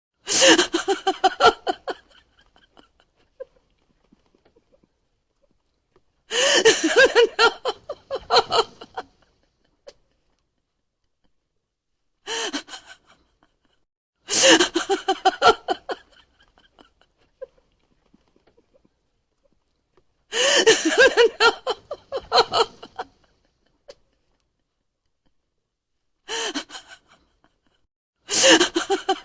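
A woman laughing loudly in high-pitched, gasping bursts, about seven fits of one to three seconds each with pauses of a few seconds between them.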